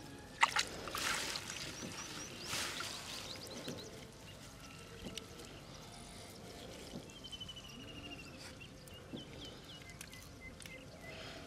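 Water trickling and splashing softly as hands work a wet mosquito net in shallow, muddy water, picking small fish out of it. There are louder splashes just after the start and again about two and a half seconds in.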